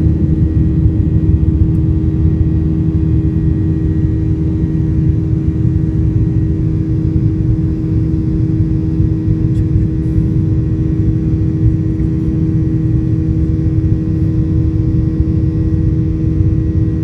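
Boeing 737-800's CFM56-7B turbofan engines at takeoff power, heard inside the cabin over the wing: a loud, steady roar with a few steady humming tones over it, through lift-off and the first climb.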